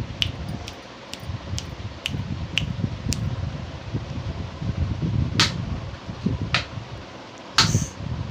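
Sharp taps about twice a second for the first three seconds, then three louder knocks, the last and loudest near the end, over a steady low rumble like an electric fan's wind on the microphone.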